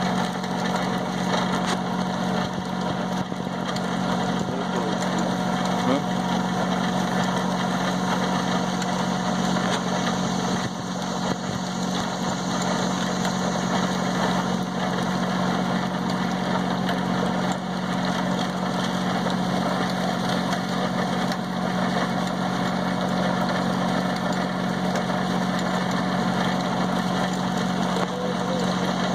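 Small gold concentrator running: a steady motor hum with water pouring from its spout into a tub.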